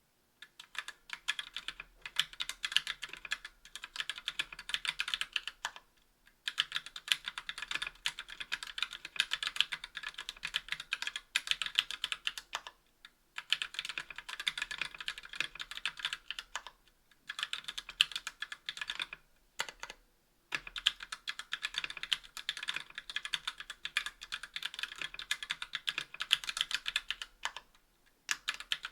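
Fast continuous typing on a 60% aluminum-case mechanical keyboard with TTC Gold V2 Red linear switches on an aluminum plate and GMK keycaps: a dense stream of bright key clacks and bottom-outs, broken by brief pauses every few seconds.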